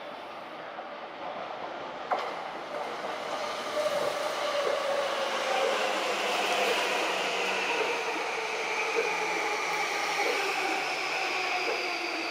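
JR East Yamanote Line E235-series electric commuter train running past close by, growing louder as it comes near. Its wheels clack over the rail joints, with one sharp clack about two seconds in, and a high whine falls slowly in pitch as it passes.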